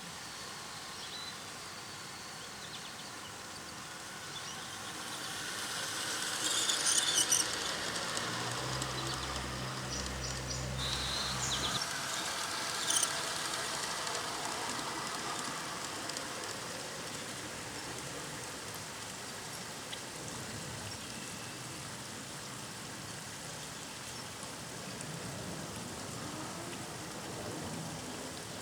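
G-scale model train running on a garden railway track. Its rolling noise swells over the first several seconds, with a cluster of clicks at the loudest point, then slowly fades away. A low hum runs for a few seconds in the middle.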